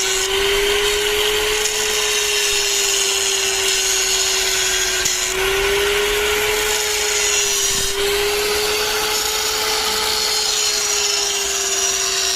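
Angle grinder grinding the root pass of a 6010 pipe weld: a steady motor whine over a hiss of abrasive on steel, dipping slightly in pitch a couple of times as it bears on the metal.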